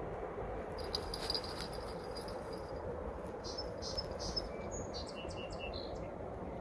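A small bird chirping a series of short, high notes at changing pitches over a steady low outdoor hiss.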